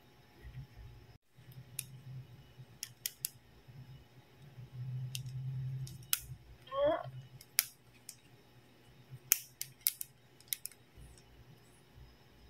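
Hard plastic toy doctor-kit pieces clicking and tapping as they are handled: a run of sharp separate clicks, with a brief wavering squeak about seven seconds in.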